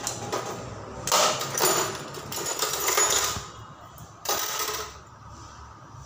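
Metal tools and parts rattling and clinking as a hand rummages through a box of tools, in several bursts over the first few seconds.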